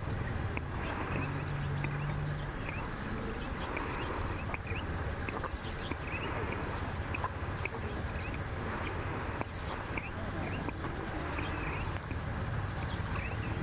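Outdoor ambience: a steady low rumble and hiss, with short high chirps scattered through it and a brief low hum about a second in.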